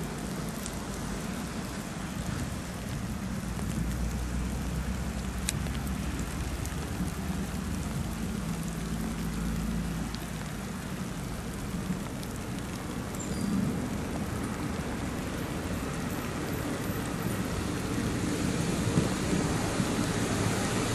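Jenbacher-built diesel railcar approaching, its low engine drone growing louder toward the end, over a steady hiss of rain.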